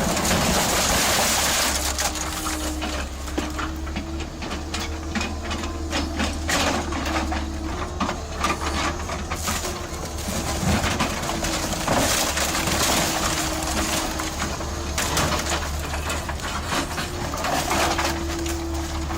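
Car-recycling machinery processing scrap cars: a steady low machine hum with a whining tone that comes and goes, and irregular metallic knocks and crunches.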